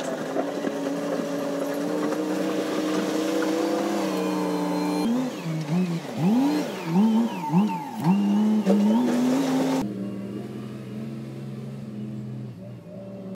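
An engine running nearby with a steady pitch, then revved up and down several times in quick succession, then cut off suddenly about ten seconds in. A weaker, lower engine hum carries on afterwards.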